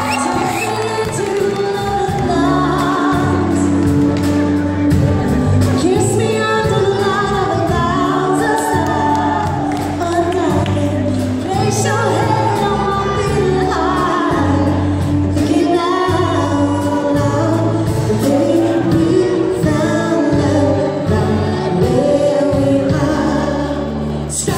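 Recorded song played over a PA system: several voices singing over a steady bass line.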